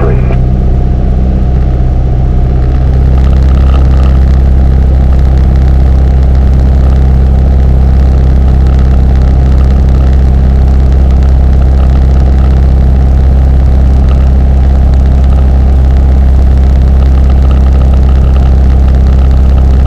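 Piper PA-28's piston engine and propeller droning steadily in cruise flight, heard inside the cockpit; it gets a little louder about three seconds in.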